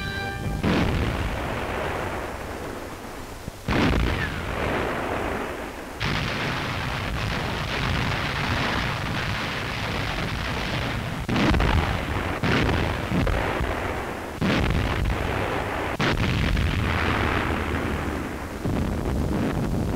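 Battle sounds of artillery fire and gunfire on an old newsreel soundtrack. About seven heavy bangs come a few seconds apart, over a continuous rumble of firing.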